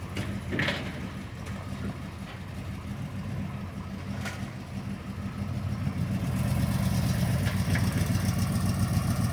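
International Scout II's original 304 V8 idling steadily, getting louder from about six seconds in as it is readied to drive up onto the trailer.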